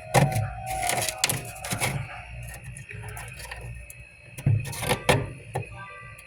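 Frost buildup being scraped off a humidifier: irregular scraping, crunching strokes, a burst of them in the first two seconds and another about four and a half seconds in.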